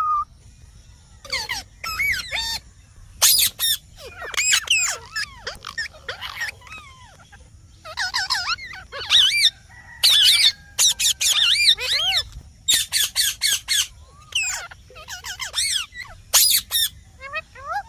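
Indian ringneck parakeet calling: short, shrill calls in quick runs of several, with brief pauses between the runs.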